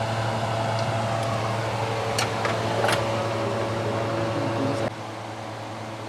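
Steady low machine hum with a few light clicks. About five seconds in, the hum suddenly drops to a quieter level.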